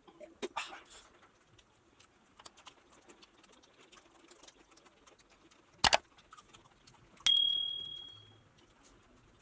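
Tableware sounds while eating: faint clicks and scrapes, a sharp double knock about six seconds in, then a clink that rings out for about a second.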